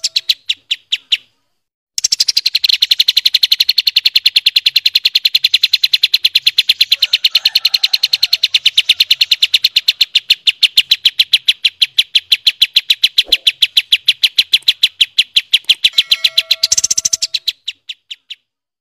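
Kapas tembak singing a long, fast trill of sharp repeated notes, the rapid 'shooting' roll used to train songbirds. It breaks off for under a second near the start, picks up again, and dies away near the end. A short, lower call with steady tones is heard at the very start and again near the end.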